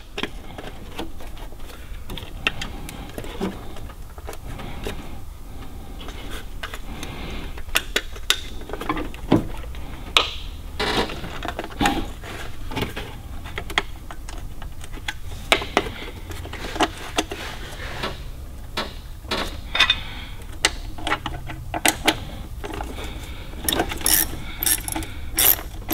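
Scattered light clicks and taps of hand work on a small-block Chevy's HEI distributor cap, then, near the end, the quick clicking of a small hand ratchet driving in the coil-cover bolts.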